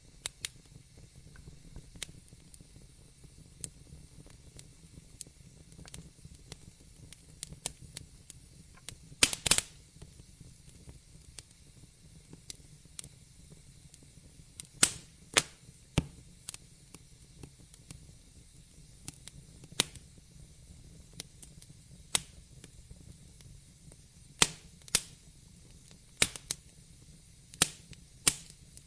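Wood fire crackling in a fireplace: irregular sharp pops and snaps, a few loud ones in quick pairs, over a low steady rumble of the flames.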